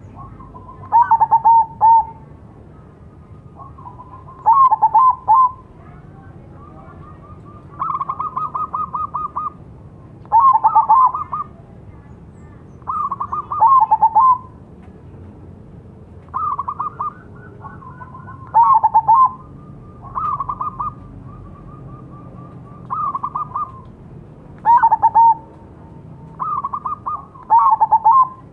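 Zebra dove (perkutut) cooing: about a dozen short cooing phrases, each around a second long, repeating every two to three seconds.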